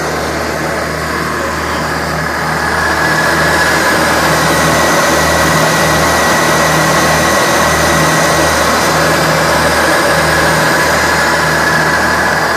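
Perkins three-cylinder diesel of a 1998 Ransomes Frontline 728D mower running steadily, with the mower deck's drive belt turning. About two and a half seconds in it gets louder and a steady high whine joins the engine hum.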